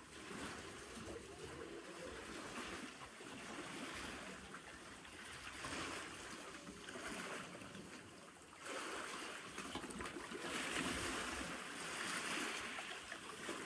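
Sea water washing and sloshing in waves, with no engine tone, louder from about nine seconds in.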